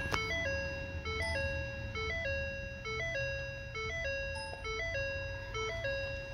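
Car's electronic warning chime repeating a short two-note tone about once a second, a higher blip dropping to a longer lower note, over a low steady hum. It sounds with the ignition just switched off.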